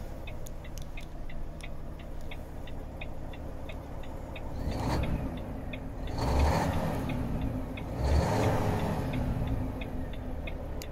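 Volvo FH 540 truck's 13-litre straight-six diesel heard from inside the cab, running steadily and swelling louder three times as the truck pulls away. The dashboard indicator relay ticks steadily over it, dropping under the engine during the surges.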